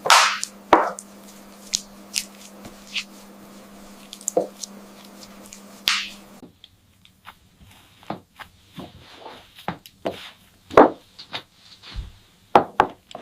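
Irregular soft taps, knocks and squishes of hands working beef and pastry on a board while the meat is wrapped in pastry. A low steady hum runs under the first half and cuts off suddenly about six seconds in.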